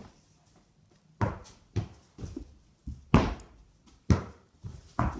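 A small ball kicked and bouncing on a plywood floor in play: about six sharp thuds spread over four seconds, the loudest about three seconds in.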